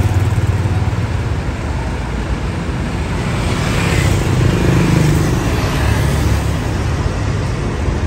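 Diesel engine of a parked Hino coach bus idling, a steady low rumble, under general bus-terminal traffic noise.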